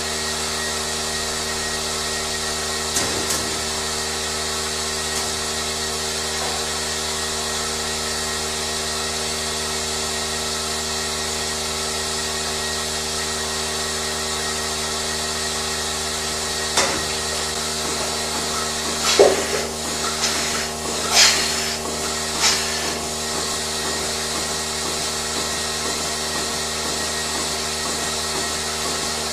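A machine running with a steady hum, joined by a few sharp knocks and clanks about two-thirds of the way in.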